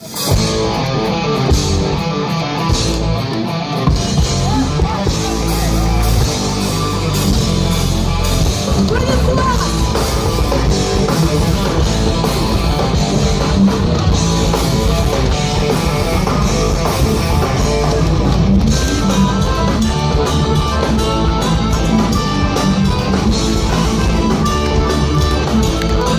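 A live rock band playing an instrumental intro: electric guitars over a drum kit, with the bass and drums coming in fully about four seconds in.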